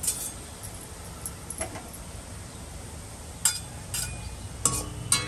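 Metal spatula clinking and scraping against a steel kadhai while lifting out fried onions: a few sharp, irregular metallic clinks, the loudest ones in the second half.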